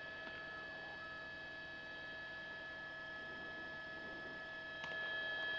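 Faint steady hum made of several high, unwavering tones over a light hiss, with no voices.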